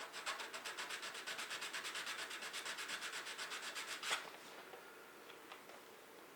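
Sandpaper rubbed quickly back and forth on the end of a CA-finished wooden pen blank, an even run of scratchy strokes, about nine a second, for roughly four seconds, ending in one louder scrape; the sanding takes off the built-up CA glue finish at the blank's end.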